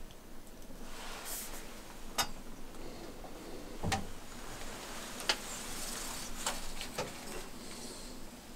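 Compound bow and arrow being handled: about five sharp clicks and light knocks as an arrow is drawn from the bow's quiver and nocked on the string. The knock about four seconds in carries a low thud.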